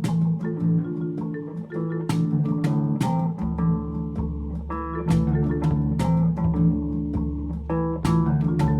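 Background music: plucked and mallet-percussion notes over a steady beat, with a bass line coming in about three and a half seconds in.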